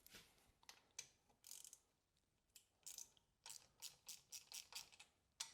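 Faint clicking of a socket ratchet, sparse at first and then about three clicks a second, as it loosens exhaust manifold nuts on a BMW R1250 GSA with an 11mm socket.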